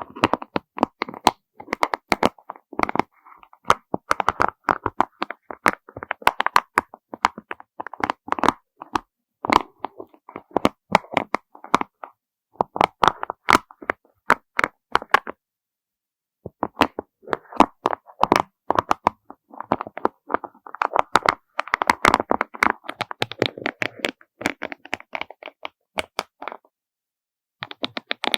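Small beads clicking and clattering against each other in quick runs of sharp little taps, with two short pauses, one about halfway and one near the end.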